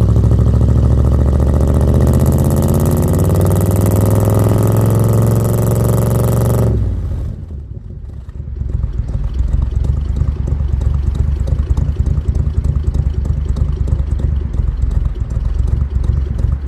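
Microbus engine and exhaust held at high revs with the pitch slowly climbing for about seven seconds. The throttle is then released abruptly, the sound drops away, and after about two seconds it settles into a rough, pulsing idle.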